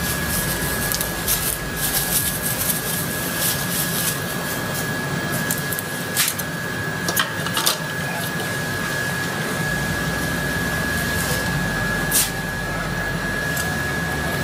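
Bubble-wrap packaging rustling and crackling as it is handled, then a few sharp clicks of plastic and metal parts being set in place, over a steady thin high tone.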